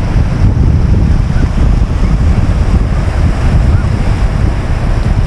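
Wind buffeting the microphone in a loud, fluttering rumble, over the steady wash of surf on the beach.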